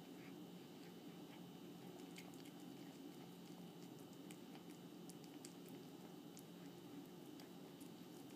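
Cat lapping tomato juice off a wooden floor: faint, irregular wet licking clicks.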